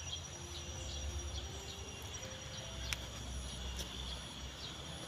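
Outdoor ambience of insects shrilling in a high steady tone, with short chirps repeating, a low rumble underneath, and a sharp click about three seconds in.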